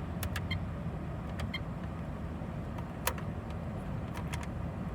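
Holden Commodore SS V8 engine idling steadily, heard from inside the cabin, with a few light clicks.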